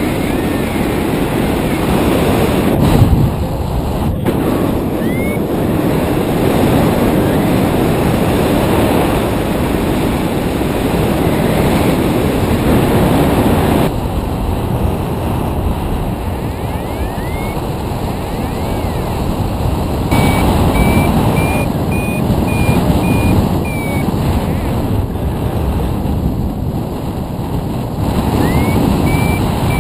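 Wind rushing over the microphone of a paraglider in flight. Short rising chirps come and go, then from about two-thirds through a variometer gives a run of short high beeps, and again near the end, the tone that signals the glider is climbing in lift.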